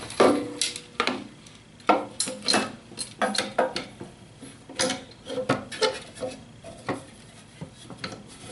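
PVC pipe dust-collector inlet being handled and fitted against a turned wooden stand: a run of irregular knocks and taps with light metal clinks from its chains and hooks, and some rubbing and scraping between them. The loudest knock comes right at the start.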